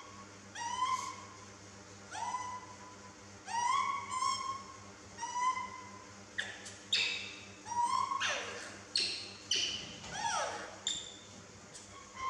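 Baby macaque calling over and over. The first calls are high coos, each rising and then held, about one every second and a half. About halfway through they turn into quicker, sharper cries and falling squeals. These are an infant's calls for its mother.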